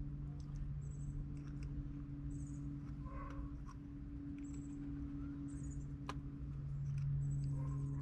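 Faint clicks and small scrapes of needle-nose pliers pushing a wire's spade connector onto the terminal of an air conditioner's dual run capacitor, with a sharper click about six seconds in. A steady low hum runs underneath, and short high chirps come and go.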